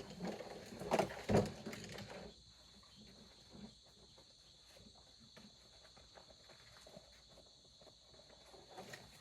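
Tools and chainsaw parts being handled: a few knocks and rattles in the first two seconds, then faint scattered clicks, over a steady high-pitched background whine.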